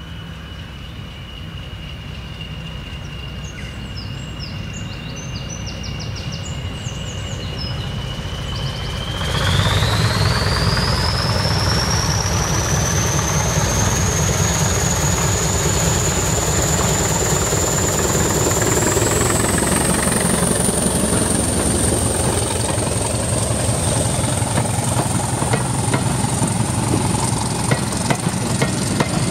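Diesel locomotive engine running and powering up, its rumble growing louder, with a thin high turbocharger whine that climbs in pitch about a third of the way in and again about two-thirds in. Birds chirp briefly a few seconds in.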